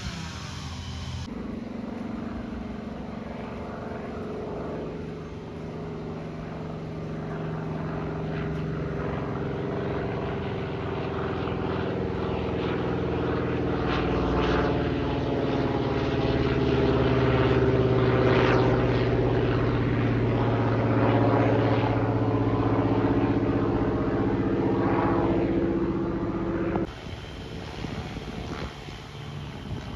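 Single-engine piston warbird flying overhead, its propeller engine droning steadily. The drone grows louder toward the middle and eases off, then drops sharply in level near the end.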